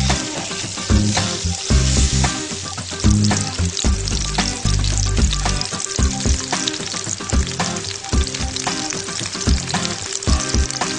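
Blackened snapper fillets sizzling steadily in hot olive oil in a cast-iron skillet, with background music underneath.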